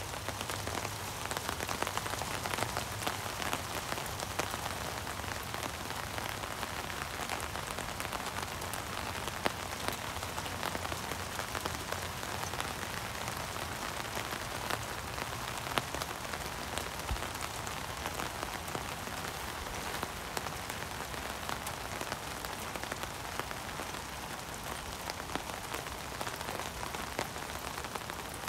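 Steady rain falling, with a dense patter of individual drops ticking close to the microphone.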